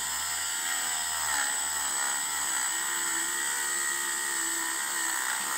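Dremel rotary tool running at a steady high speed with a steady high whine, its wire brush scrubbing old grease off a small metal sewing machine part.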